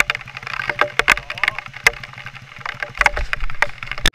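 Many irregular sharp clicks and knocks over an engine running at low, steady revs.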